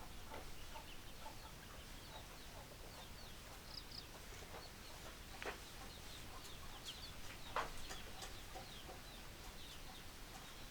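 Chickens clucking: many short, scattered calls, with two louder sharp squawks about halfway through.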